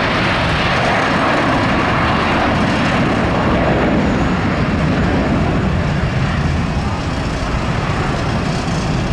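Airbus A330 jetliner's engines at takeoff thrust as it lifts off the runway: a loud, steady jet noise.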